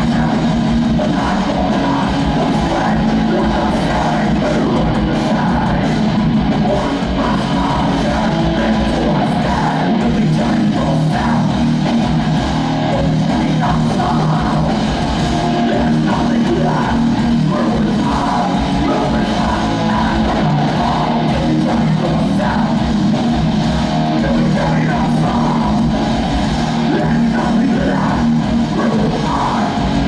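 Hardcore metal band playing live and loud: distorted electric guitars, bass and a drum kit, with the singer yelling vocals over them.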